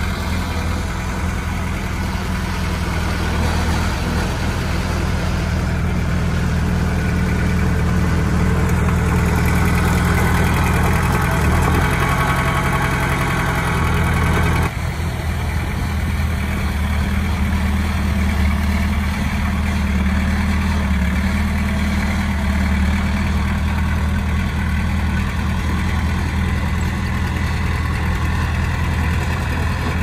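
Komatsu D20P bulldozer's diesel engine running steadily. A louder, busier stretch builds in the middle and drops off abruptly about halfway through.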